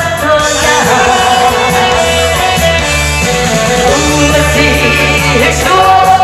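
A woman singing a Korean song into a microphone over loud amplified instrumental accompaniment.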